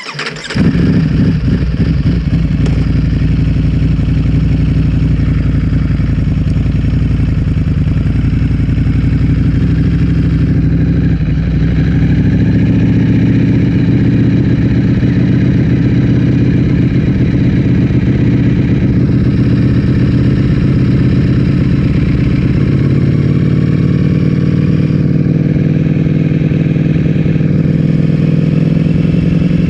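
Ducati Streetfighter V4S's 1103 cc V4 engine running through an Akrapovic full-system exhaust, coming in suddenly at the start and then holding a steady, nearly constant pitch with slight changes partway through.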